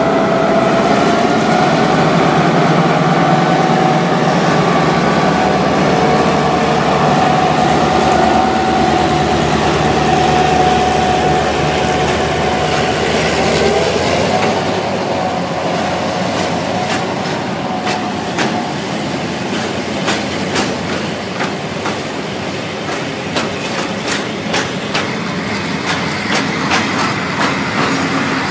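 HŽ series 2062 diesel locomotive running close by with a steady engine note for about the first half. Then the engine fades and a freight train's wagons roll past, their wheels clicking over rail joints, the clicks coming more often toward the end.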